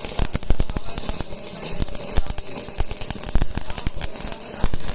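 Stick welding arc crackling steadily: a dense, irregular run of sharp pops over a steady hiss as the electrode burns.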